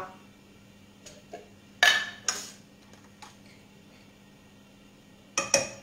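Kitchen utensil clinking against dishes and pans: a few light clicks, two sharp clatters about two seconds in and two more near the end, over a faint steady hum.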